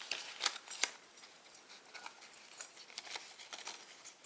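Paper and card pieces of a handmade junk journal being handled: light rustling with soft taps and clicks, a few sharper ones in the first second.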